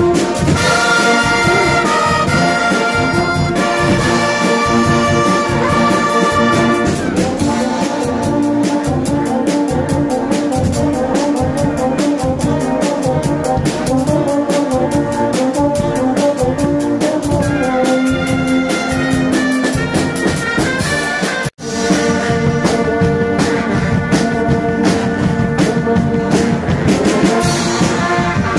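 Guggenmusik carnival band playing loudly: trumpets, trombones and sousaphones in full chords over a drum kit and marching drums keeping a steady beat. The sound cuts out for an instant about three quarters of the way through, then the band plays on.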